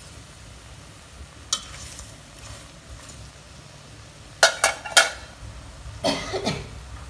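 A utensil knocking and scraping against a metal wok as whole shrimp are stirred in it. There is a single clink early on, then three loud sharp clinks a little over four seconds in, and a scrape about a second later.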